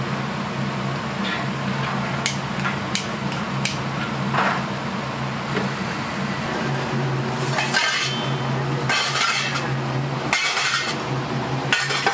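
Dishes and cutlery clinking and clattering in a restaurant kitchen, in scattered sharp clicks with a few busier clatters in the second half, over a steady low hum.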